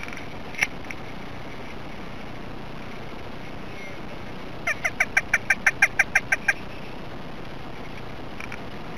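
A rapid run of about a dozen loud duck-like quacking calls, about seven a second, lasting under two seconds midway through. A single sharp knock comes just after the start.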